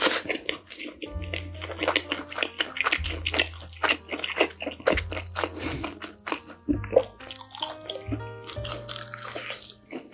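Crunchy chewing of a thick slice of bacon-topped Chicago-style pizza, with rapid, close crackles from the crust and bacon. Background music with held bass notes plays under it.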